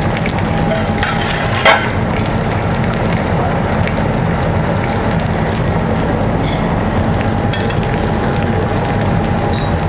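Lamb saddles sizzling in foaming butter in a cast-iron pan while being spoon-basted, with small clicks of the spoon and one sharper clink against the pan about a second and a half in. A steady low hum runs underneath.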